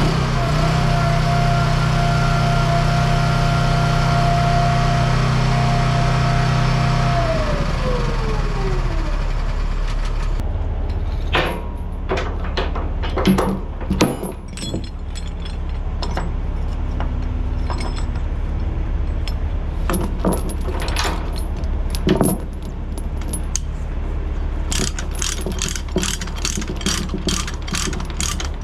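Excavator's diesel engine running steadily with a high hydraulic whine, then winding down and shutting off about seven seconds in. A lower engine idle carries on underneath while chains clank and rattle, with a run of quick ratchet clicks near the end as the load is chained down.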